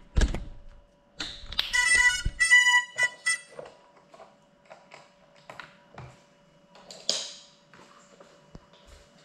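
A knock, then a quick run of short electronic beep tones at several pitches: the FPV drone's motors playing their ESC start-up tune as the battery is connected. A few soft clicks and a brief hiss follow, with no propellers spinning.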